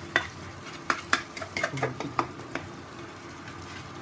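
Metal spatula scraping and clicking against a non-stick frying pan as crushed onions are stirred while frying in oil, over a steady sizzle. The stirring stops about two and a half seconds in, leaving only the sizzle.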